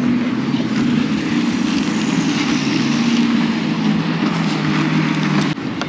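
A steady engine drone with wind noise on the microphone, cutting off abruptly near the end.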